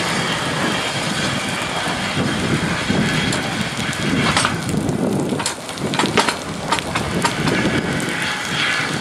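Two coupled steam locomotives, a Midland Railway Class 4F 0-6-0 and an LNWR 0-6-2T coal tank, working at low speed with a steady steam hiss and exhaust. A run of sharp clicks comes through the middle.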